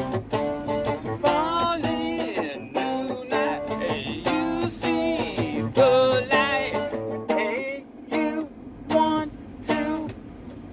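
Steel-string acoustic guitar being strummed, with a man's voice singing along in a wavering melody. Near the end the playing thins to a few separate strummed chords, the last about ten seconds in.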